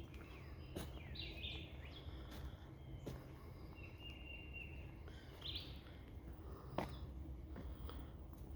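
Woodland birds calling: several short chirps and one held whistled note, with a steady low rumble underneath. A few sharp clicks come through, the loudest about two-thirds of the way in.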